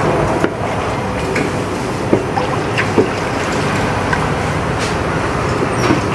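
Wooden pestle pounding and mashing wet fish chili paste in a large metal bowl, with irregular knocks over steady background noise.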